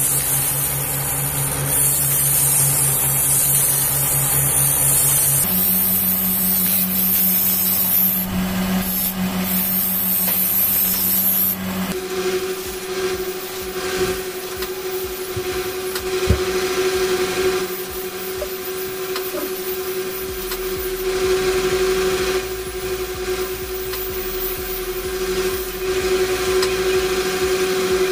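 Bench grinder running with a steady motor hum while a used bandsaw blade is pressed against its wheel, giving a hissing grind. The hum changes pitch suddenly about five seconds in and again about twelve seconds in, and a single sharp click comes near the middle.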